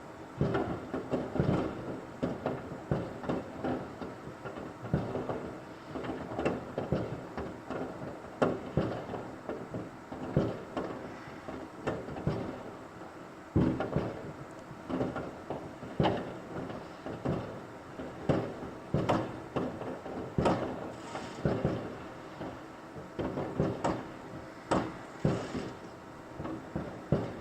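Many fireworks exploding at once: a rapid, irregular string of bangs, several a second at times, over a continuous din of more distant bangs.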